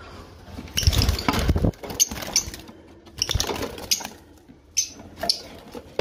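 Scratching and rustling in a straw-lined lovebird nest box, in irregular bursts, with a few short high squeaks.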